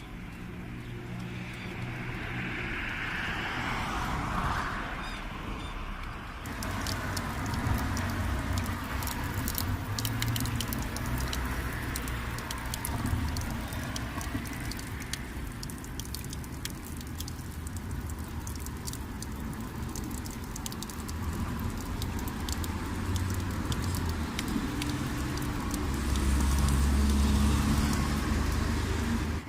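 A road vehicle running, with a low engine rumble and road noise that swells near the end, and many faint ticks and clicks over it.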